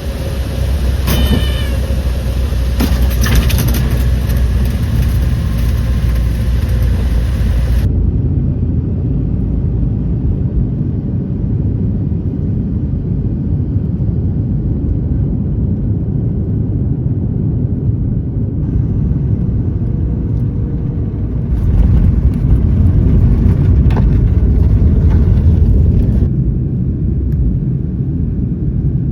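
Cessna 172N's four-cylinder piston engine and propeller running, heard from the cabin as a loud steady drone with a few clicks. About eight seconds in it cuts to the duller, steady roar of a Boeing 737-9 cabin in flight, which grows louder for a few seconds near the end.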